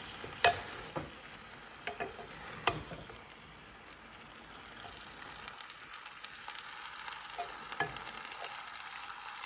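Purple cabbage and squash sizzling in a hot pan while being stirred, with a utensil clicking against the pan a few times, mostly in the first three seconds.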